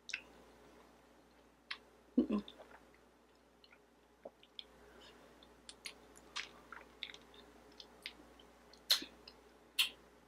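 Close-up mouth sounds of soft mochi ice cream being chewed: scattered wet smacks and clicks, with a few louder smacks about two seconds in and near the end.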